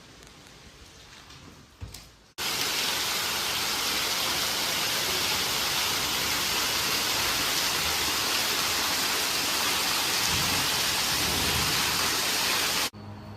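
Heavy rain pouring down, a loud steady hiss that starts suddenly a couple of seconds in and cuts off just as suddenly about half a second before the end; before it, only faint room sound and a short knock.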